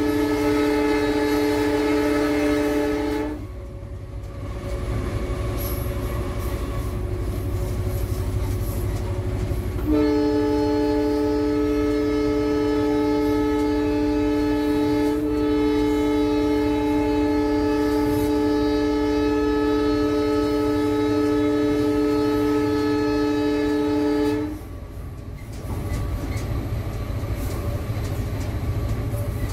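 Diesel locomotive air horn of an EMD GT46PAC (WDP4), heard from inside its cab. One blast ends about three seconds in, and a long steady blast of about fourteen seconds follows, all over the low running rumble of the locomotive and its wheels on the rails.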